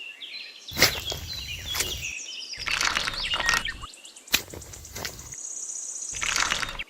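Birds chirping, with sharp clicks and a noisy scraping haze coming in short stretches that cut in and out about four times.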